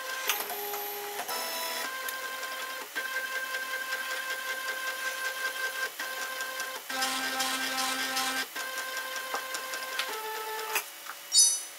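Prusa i3 3D printer running a print, its stepper motors whining in steady tones that jump to a new pitch every second or two as the print head changes moves. A brief louder noise comes near the end.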